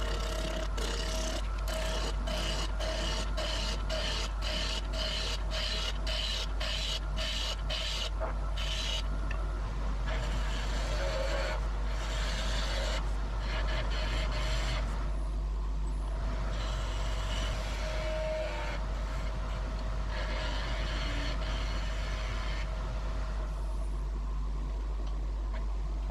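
A wood lathe running with a steady whine while a hand-held turning tool cuts the spinning wooden blank. For the first several seconds the cutting comes in regular strokes about twice a second, then in longer, uneven passes.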